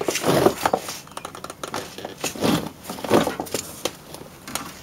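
Small metal clicks and scrapes as a key is worked by hand into the keyway on a Delphi V5/V7 AC compressor shaft, ahead of fitting the clutch hub. The clicks come irregularly, several to the second.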